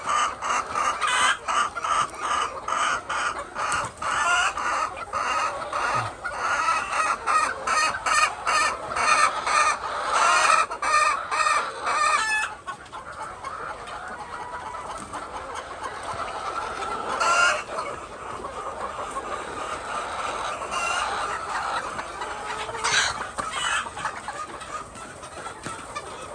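A flock of chickens clucking and calling, many birds at once, busy and dense for about the first twelve seconds, then suddenly quieter and sparser. A couple of longer, louder calls stand out later on.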